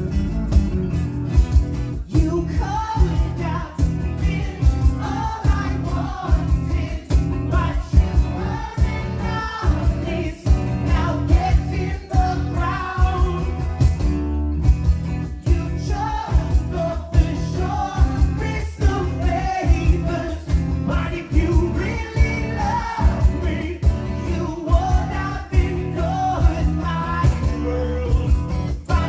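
Rock band playing live unplugged: a voice sings over strummed acoustic guitars, with a steady percussion beat.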